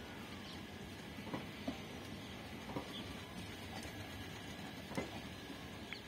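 Passenger coaches of an express train rolling slowly past: a steady rumble broken by irregular clicks, knocks and short squeaks from the wheels and running gear.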